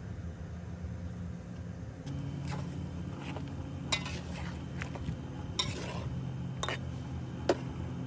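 Metal spatula stirring chicken in a large aluminium wok, scraping and clanking against the pan, starting about two seconds in with several sharp knocks. A steady low hum runs underneath.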